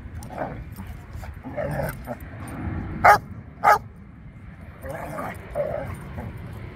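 Dogs play-fighting, with two sharp, loud barks about half a second apart a little past halfway, and softer dog vocal sounds around them.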